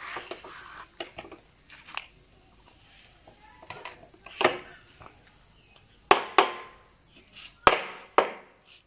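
Five sharp knocks of a carpenter's hammer on wood: one about halfway through, then two quick pairs near the end. A steady high insect buzz, from crickets or cicadas, runs underneath.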